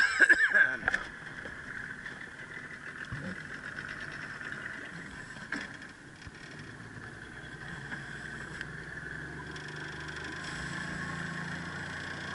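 Small boat motor running steadily with a constant high hum, after a short burst of louder clattering noise in the first second.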